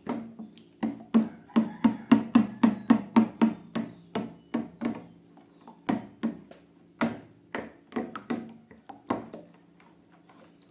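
A series of sharp taps or knocks, each ringing briefly. They come irregularly, with a quick even run of about four a second a second or so in, and stop near the end over a faint steady low hum.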